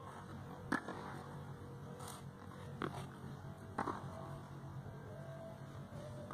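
Tennis ball struck back and forth by rackets in a quick rally: several sharp hits about a second apart, over a faint steady hum.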